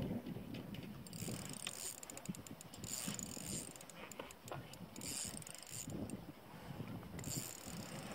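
Fixed-spool fishing reel being wound, its gears whirring and clicking in several spells of about a second each.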